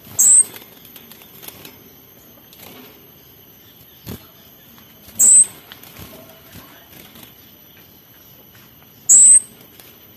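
Male orange-headed thrush (kemade) giving three short, sharp, very high calls about four to five seconds apart. Each call is a quick downward sweep.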